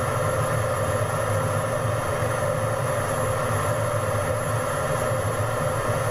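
Steady drone of jet engine and airflow inside a fighter jet's cockpit, with a thin, high, steady whine over it.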